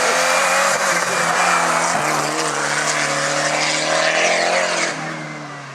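Hillclimb race car engine running hard at high revs as the car passes close, with breaks in pitch about one and two seconds in. The sound drops away sharply about five seconds in.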